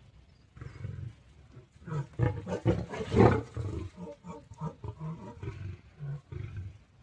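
A tiger and a lion fighting, roaring in a rapid series of short bursts that start about half a second in, are densest and loudest around three seconds in, and trail off into scattered shorter roars.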